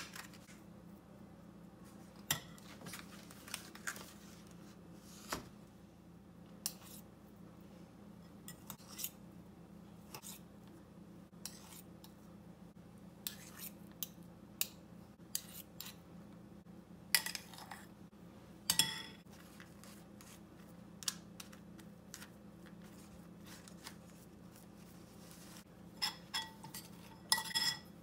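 Metal spoon scraping and tapping against disposable aluminium foil trays while spreading mashed potato, a string of scattered light scrapes and clicks. A few brief ringing clinks stand out about two-thirds of the way in and again near the end, over a steady low hum.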